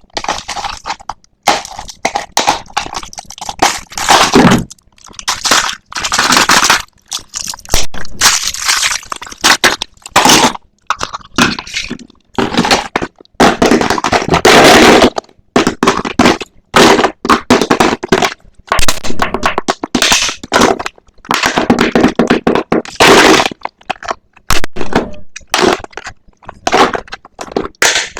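Toy packaging crinkling and tearing in irregular, loud crackly bursts with short pauses between them, as a blind-box toy is unwrapped.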